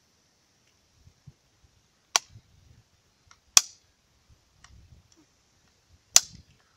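Three sharp gunshots, about two, three and a half and six seconds in, fired while the carbine at the bench is not being aimed, so from other shooters on the range. Faint clicks of a rifle being handled fall between them.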